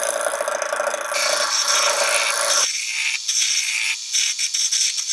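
Harbor Freight Central Machinery mini wood lathe running while a hand-held turning tool cuts a spinning wooden blank, a steady scraping hiss of the cut. About two and a half seconds in, the sound abruptly turns thinner and higher and is broken by short gaps.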